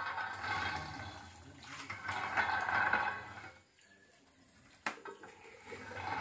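Water splashing and running off a wet sheet of raw rubber as it is pressed through the rollers of a rubber-sheeting roller. The sound drops away briefly past the middle, and a single sharp click comes about five seconds in.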